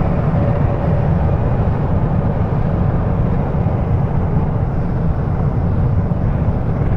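Steady low rumble of vehicles on the road, heard from inside a pickup's cab, with a Peterbilt 379 tanker truck running close alongside.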